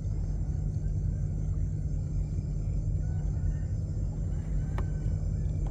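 Small river boat's engine running steadily as a low rumble, with one sharp click about five seconds in.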